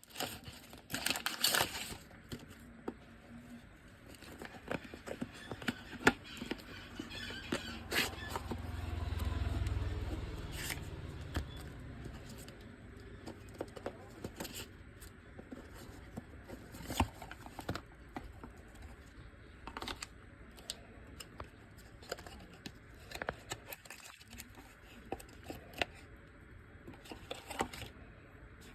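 Smartwatch packaging and parts being handled during unboxing: scattered sharp clicks, taps and scraping, with a low rumble swelling about eight to twelve seconds in.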